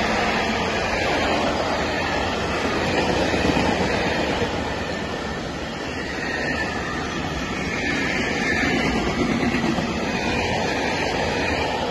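Intermodal freight train's container and trailer wagons rolling past at speed: a loud, steady rush of wheel and rail noise that eases slightly midway and swells again.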